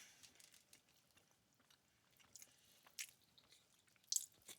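Faint close-up chewing of fried, honey-glazed shrimp, with scattered soft mouth clicks, the clearest about three seconds in and a pair just after four seconds.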